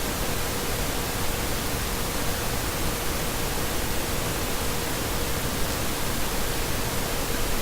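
Steady, even hiss with a faint steady tone running under it; nothing else happens.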